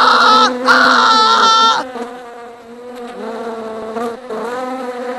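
Swarm of bees buzzing, a steady drone. A louder, higher, wavering sound rides over the buzz for about the first two seconds, then only the buzzing is left.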